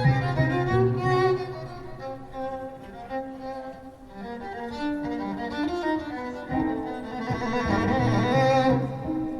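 Instrumental break in a live song: a bowed violin plays a melody over sustained low string notes.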